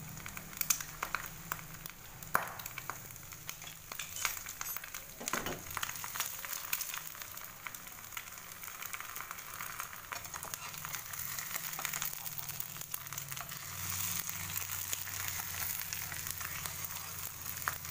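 Two eggs frying sunny-side up in hot oil in a nonstick pan: a steady sizzle with scattered crackles and pops, denser in the first few seconds.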